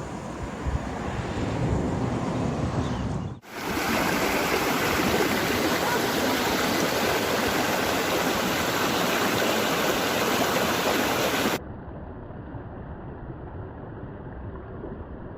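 Rushing water of a mountain stream or waterfall, a steady loud hiss. The recording cuts twice: a quieter stretch at first, the loud rushing water from about three seconds in, then a sudden drop near the end to a softer, duller rushing noise.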